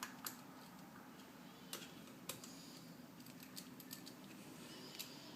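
Faint, scattered small clicks and taps: a 2 mm hex driver and small screws working against the plastic fan housing of an RC speed controller, a handful of irregular clicks a second or so apart.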